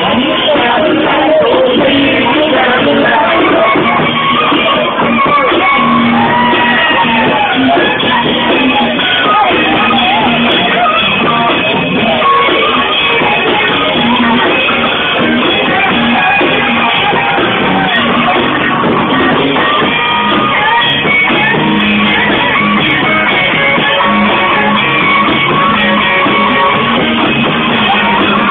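Rock music with a singer and guitar, played loud.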